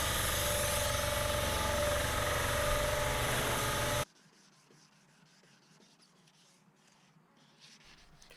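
A power sander running steadily on the truck's bodywork, a steady rubbing noise with a whine through it. It cuts off abruptly about four seconds in, leaving near silence.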